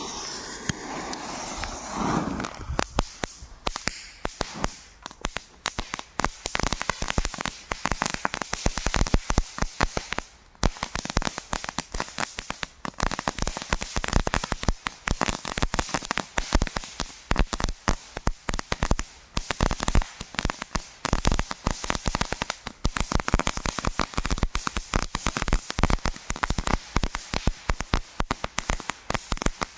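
Two Jorge JC08 crackling fountains burning side by side, giving a dense, continuous crackle of rapid irregular pops that sets in within the first few seconds.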